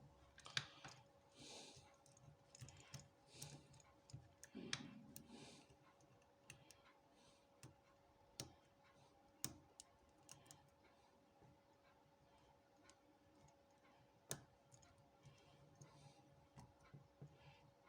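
Faint, irregular clicks and light scraping of a short hook pick and tension wrench working the pin stack inside a 50mm brass Avocet five-pin padlock, with a few sharper clicks as pins move. A faint steady hum runs underneath.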